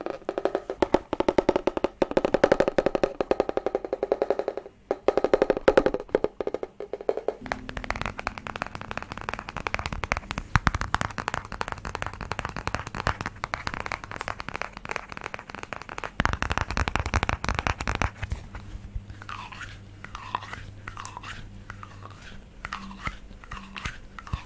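Rapid, crisp ASMR tapping on objects, a dense run of quick taps that changes its tone twice as the tapped object changes. Near the end it gives way to repeated sweeping strokes at about two a second.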